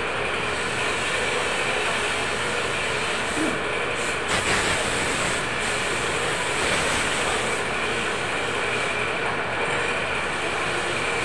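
Steady din of factory machinery running, a constant noisy hum with faint steady whines in it, and a short burst of noise about four seconds in.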